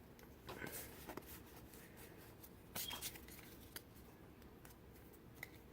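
Faint rustles and clicks of trading cards being handled and flipped through: a few short strokes with quiet gaps between them.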